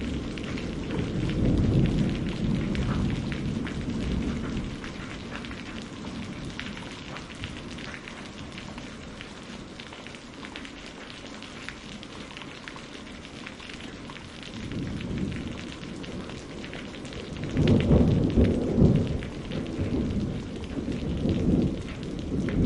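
Steady rain with scattered drop ticks, and rolling thunder rumbles that die away in the middle and build again near the end, where they are loudest.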